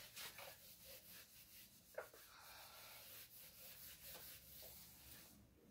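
Faint rubbing of an eraser wiping writing off a whiteboard in uneven strokes, with a soft tap about two seconds in.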